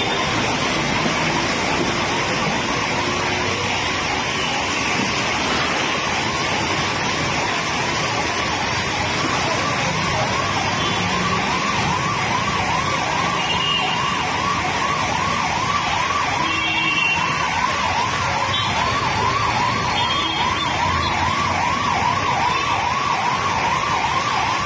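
Emergency vehicle siren in a fast rising-and-falling yelp, about two cycles a second. It is faint at first and clearer from about a third of the way in, over steady street noise.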